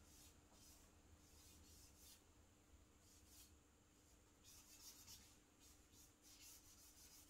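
Faint scratchy strokes of charcoal rubbing on paper as shading is laid in, a series of short strokes with a busier run past the middle.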